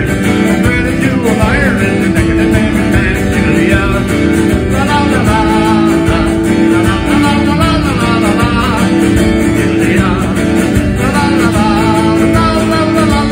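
Male voice singing to his own strummed acoustic guitar, played live.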